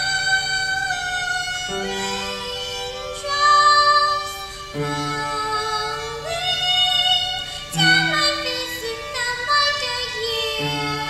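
Upright piano playing slow, held chords under a high melody line of long notes that bend slightly, with a new bass note about every two to three seconds.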